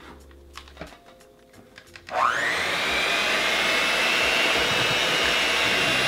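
Electric hand mixer switched on about two seconds in: its motor whine climbs quickly in pitch and then runs steady, the beaters whisking a thin pancake batter of milk, eggs, sugar and flour.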